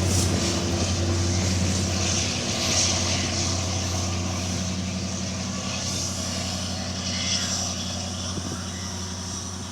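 Diesel engine of a Class S13A diesel multiple unit running with a steady low hum, slowly fading.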